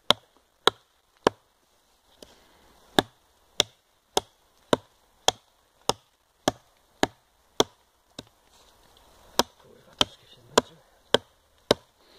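Small hatchet with a plastic handle chopping into a felled log: a steady run of sharp blows of the steel head into wood, nearly two a second, with two short pauses in between.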